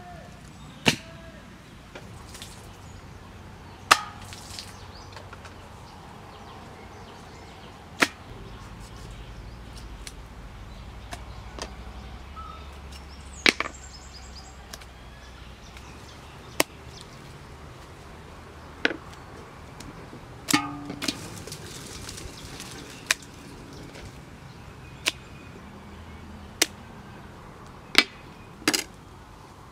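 Raw beef being cut up with a knife over a metal tray: about a dozen sharp knocks at uneven gaps of one to four seconds.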